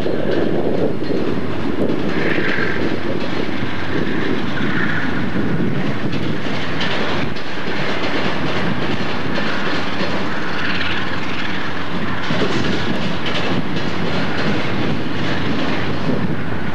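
Amtrak Superliner bilevel passenger cars rolling past at steady speed: a continuous rumble of wheels on rail, with clicks over the rail joints and brief higher-pitched squeals coming and going.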